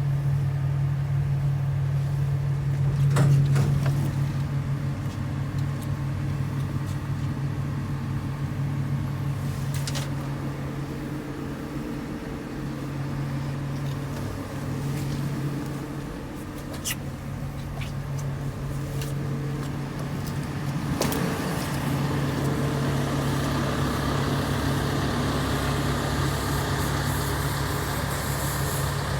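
Diesel engine of a JCB 220X tracked excavator running at a steady speed, with a few short, sharp knocks scattered through it.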